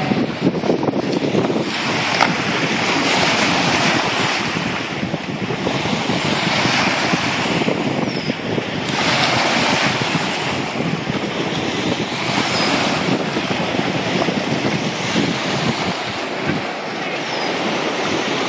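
Small lake waves breaking and washing up a pebble shore, swelling and easing every few seconds, with wind buffeting the microphone.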